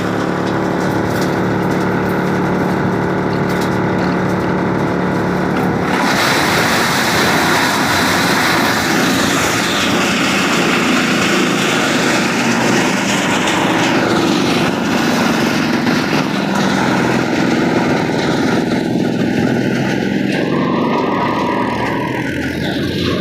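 Tractor-driven wood chipper running, with steady engine tones at first. About six seconds in a loud, rough noise sets in and carries on for most of the rest, as wood goes through the cutter.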